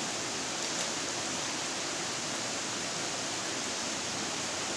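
Steady, even rush of water from heavy rain and the flooded creek.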